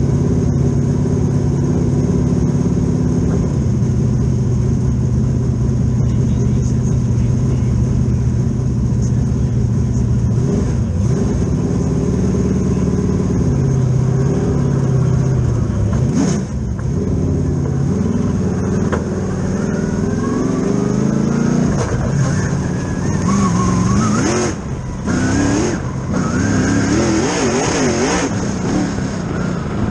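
Race car engine heard from inside the cockpit of a two-seat dirt car. It runs at a steady pitch for about the first ten seconds, then revs up and falls back repeatedly, with the rises and drops coming quicker in the last several seconds as the car is driven harder on the dirt track.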